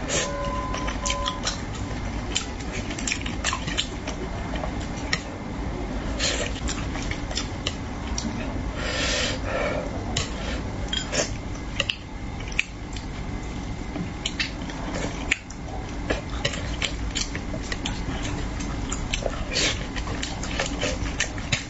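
Close-miked eating sounds from a person eating spicy braised fish with chopsticks: wet sucking, lip smacks and many small clicks, with a longer sucking noise about nine seconds in.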